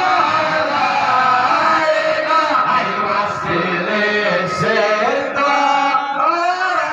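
Men chanting an Islamic devotional song (shalawat) together, a continuous melodic chant with slowly gliding held notes.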